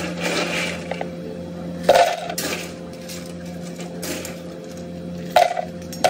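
Ice cubes and a plastic blender jar being handled on the blender base, giving several sharp clinks and knocks; the loudest comes about two seconds in. A steady appliance hum runs underneath.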